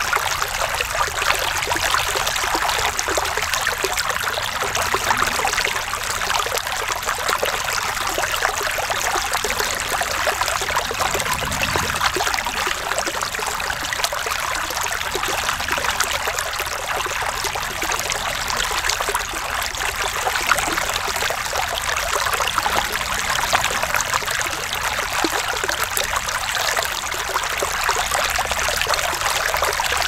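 Small shallow stream pouring over and around stones in a short cascade, a steady, unbroken splashing rush of water.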